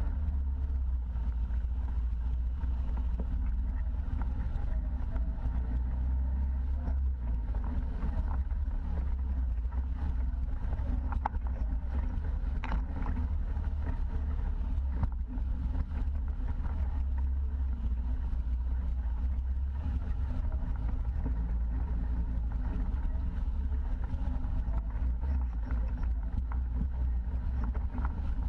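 Side-by-side UTV engine running steadily under load, heard from a camera mounted on the machine as it drives along a wet, muddy trail: a deep, even drone with a few sharp knocks near the middle from the chassis jolting over the rough ground.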